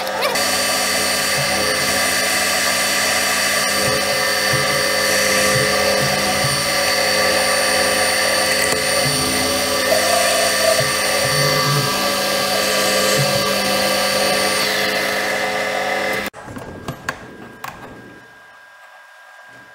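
Metal lathe running under power while turning a steel shaft held in its chuck: a loud, steady machine whine made of several held pitches. It cuts off suddenly about 16 seconds in, leaving a much quieter workshop with a few light knocks.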